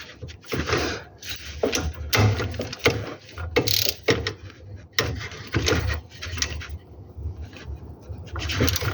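Irregular bursts of clicking and rattling, about one every half-second to a second, over a low steady rumble: the gravel-like clicking noise of a Nissan 350Z.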